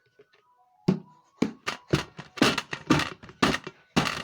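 A rapid run of sharp slaps and knocks, about four a second, starting about a second in, from watery slime and its plastic tub being handled and shaken out.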